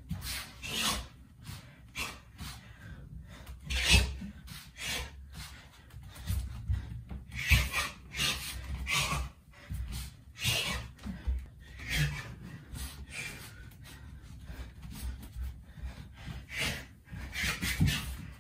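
Short, sharp hissing exhalations with the strikes of Muay Thai shadowboxing, mixed with bare feet thudding and scuffing on a wooden floor, coming irregularly about once or twice a second.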